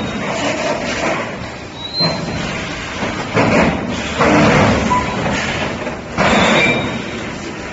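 Industrial machinery working in repeated cycles, most likely the EPS 3D wire mesh panel welding machine: loud, noisy bursts of clanking and thumping every one to two seconds over a steady background.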